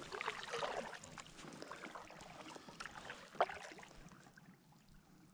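Kayak paddle strokes splashing, with water dripping off the blades, fading away as the kayak glides; a single sharp knock about three and a half seconds in.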